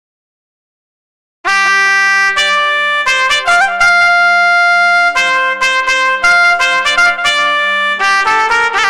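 Roland Fantom 06 keyboard playing a melody on a trumpet-like wind lead sound over a held low note. It comes in suddenly after about a second and a half of silence.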